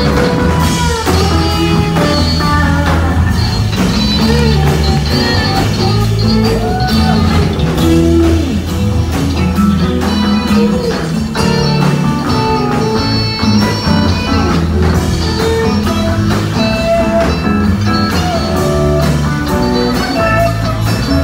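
Live rock band playing an instrumental break with no singing: an electric guitar lead line with bent notes over steady drums and bass.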